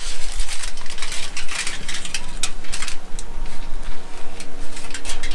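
Irregular crinkling and crackling from close-up handling of crumbled bacon being put onto the chicken, over a faint steady hum.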